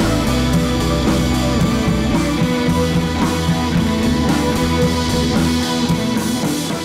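Background music led by guitar, with a regular beat.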